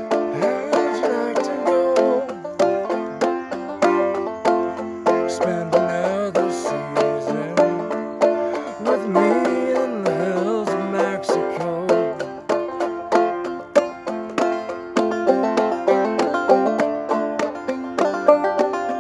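Five-string banjo played clawhammer style in G modal tuning with the fifth string dropped to F: a steady run of plucked notes and brushed strums. A man's voice sings along over roughly the first twelve seconds, its pitch sliding up and down, after which the banjo carries on alone.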